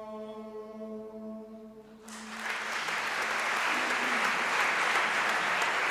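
Male vocal ensemble holding the final chord of a Georgian chant over a low sustained note, dying away about two seconds in. Audience applause then breaks out and builds.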